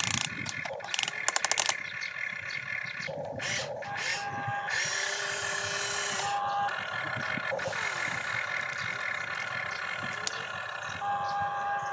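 A toy RC excavator's small electric motors and gearboxes whine steadily as it swings its boom round and lifts its bucket. A fast rattle of clicks comes about a second in, and a brief hiss comes midway.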